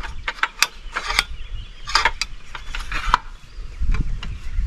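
Irregular clicks and knocks from handling a cordless circular saw and the wooden rail boards.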